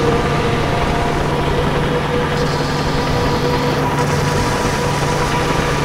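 Dark ambient drone: a steady, dense wash of noise with a few long held tones under it, without a beat or any change.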